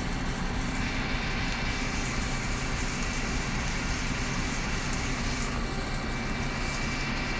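Okuma LU-15M CNC lathe taking a facing cut across the saw-cut end of a steel part: steady machining noise from the spindle and tool with a thin, constant high whine.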